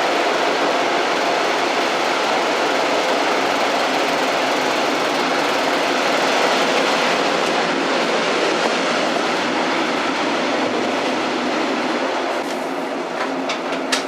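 Old train running along the track, a steady noise of wheels and carriages with a few sharp clicks near the end.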